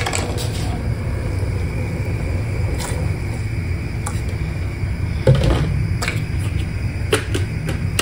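Steady low rumble of a gas stove burner heating a pan of milk tea towards the boil, with a few light clicks and knocks.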